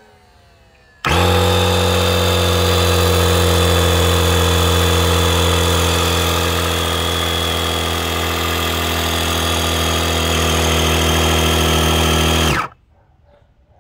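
Electric high-pressure inflation pump for inflatable boats switched on about a second in, running at a loud, steady hum with a hiss of air, then switched off and stopping abruptly near the end.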